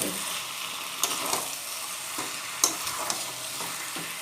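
Chicken and masala sizzling in oil in a pan while being stir-fried, with the spatula clicking and scraping against the pan a few times.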